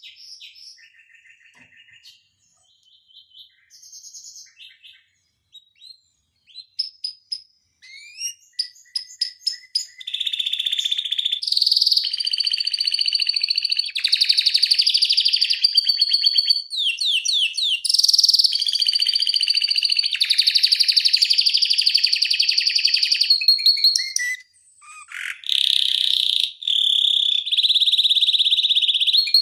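Domestic canary singing. It starts with soft, spaced chirps and short trills, then about a third of the way in breaks into a loud, continuous rolling trill song that runs on with only one brief pause near the end.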